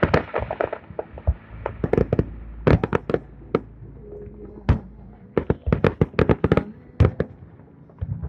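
Aerial fireworks shells bursting in rapid volleys of sharp bangs. About halfway through the bangs thin out for a second or two before another dense cluster.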